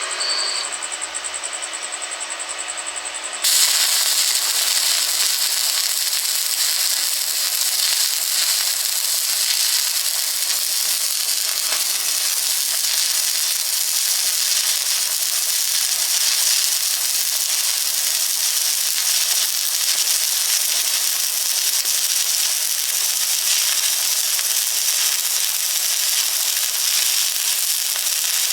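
Stick (arc) welding: the arc crackles and sizzles steadily as a bead is run, starting abruptly about three and a half seconds in.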